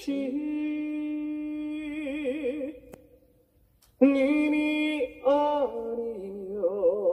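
A man singing a slow ballad line unaccompanied. He holds one long note that ends in vibrato, breaks off for about a second, then sings another phrase that also wavers in vibrato.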